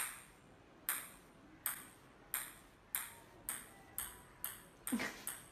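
A run of about ten short, ringing pings, like a small hard object struck repeatedly, coming gradually faster.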